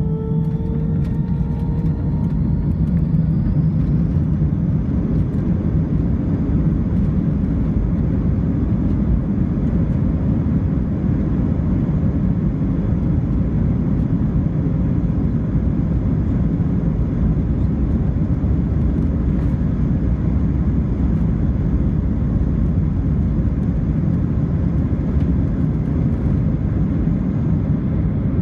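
Airbus A320 jet engines spooling up to takeoff thrust, heard from inside the cabin over the wing: a whine rises in pitch over the first few seconds, then levels into the steady, loud engine noise and rumble of the takeoff roll.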